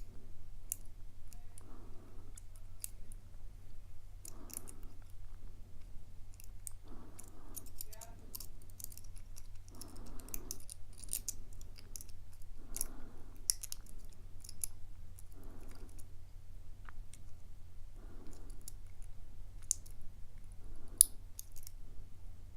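Faint, irregular metallic clicks and scrapes of a lock pick and tension wrench single-pin picking a Shield Security steel padlock; the pins feel set but the plug will not turn. Soft breaths come every two to three seconds, over a low steady hum.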